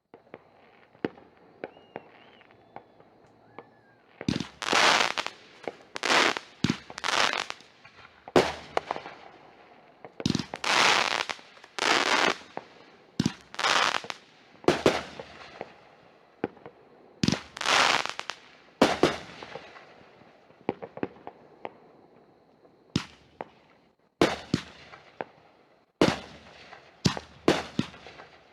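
Consumer aerial fireworks going off: a few faint sharp cracks, then from about four seconds in a long string of loud bursts, roughly one a second, with smaller crackling pops in between.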